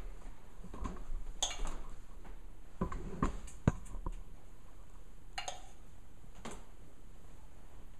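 Metal spoon clinking and scraping against a glass measuring cup while melted chocolate is spooned into paper cupcake liners: a handful of light knocks, the sharpest about three and a half seconds in.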